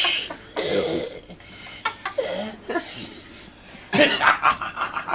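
Small audience laughing and chuckling, with a cough-like breathy burst at the start and a run of short noisy bursts of laughter about four seconds in.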